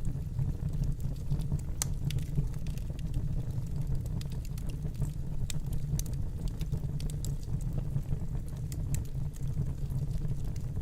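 Wood fire burning in a fireplace: a steady low rumble of flames with scattered sharp crackles and pops at irregular moments.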